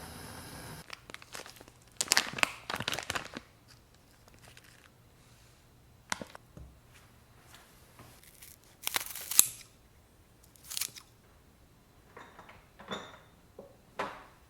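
Several short bursts of crunching and rustling, as of food or packaging being handled. The loudest come at about two to three seconds in and at about nine seconds. A steady hum stops just under a second in.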